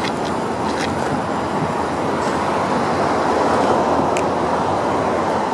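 A steady rushing background noise with no engine running, and a couple of faint clicks as the front trunk lid of a Porsche 914 is worked open.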